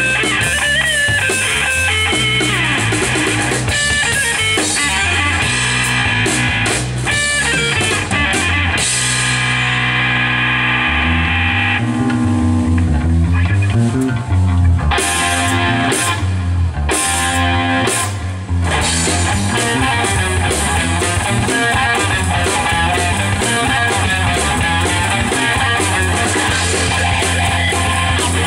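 A live rock band playing: electric guitar, bass guitar and drum kit through a PA. The cymbals and drums thin out through the middle, and the full band comes back in about two-thirds of the way through.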